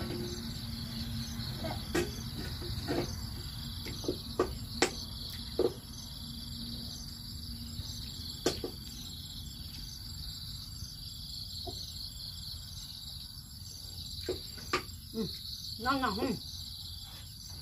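Steady chirring of crickets and other insects, with scattered sharp clicks of chopsticks against a plastic plate, the loudest a few seconds in. A brief voice near the end.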